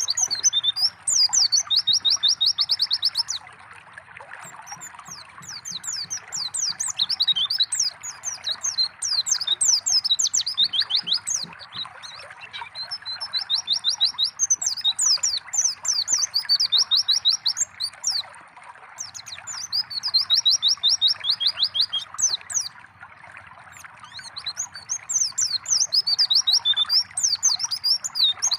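White-eyes (pleci) singing in bouts of rapid high chirps and fast, even trills, each bout a few seconds long with short pauses between, over the steady trickle of running water.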